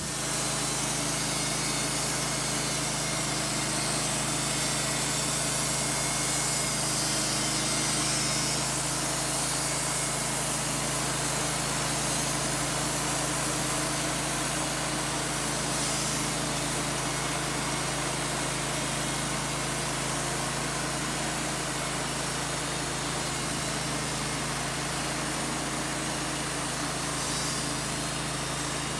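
Wood-Mizer portable band sawmill running steadily, its engine humming under the hiss of the band blade sawing through an incense cedar cant.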